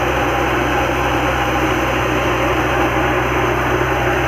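S Kumar thresher running steadily while threshing pigeon pea plants fed in by hand: a continuous mechanical din with a steady low engine hum.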